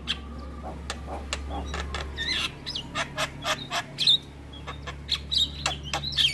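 Javan myna singing a rapid, busy string of sharp clicks and short chattering, whistled notes.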